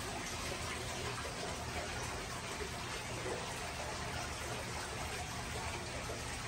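Steady trickling and hissing of aquarium water circulation, typical of a filter return running into the tank, over a low, even hum.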